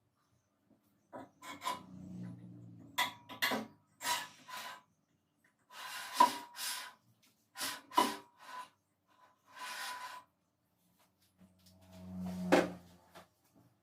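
Handling noise from a bandsaw blade change: a series of short scrapes and knocks of metal and wood rubbing together, several with a faint metallic ring, and a low rumble near the start and again near the end.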